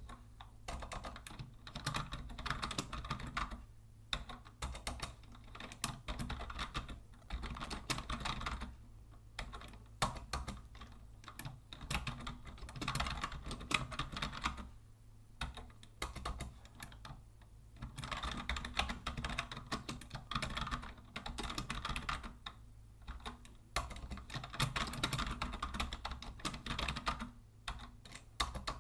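Typing on a vintage Logitech Deluxe 104 wired keyboard: fast runs of plastic key clicks, broken by brief pauses every few seconds.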